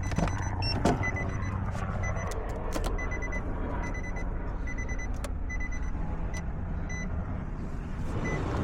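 Short electronic beeps repeating steadily, roughly one every half second, over a steady low hum, with a few sharp clicks, while a chip key sits in a 2007 Nissan Sentra's ignition during key programming.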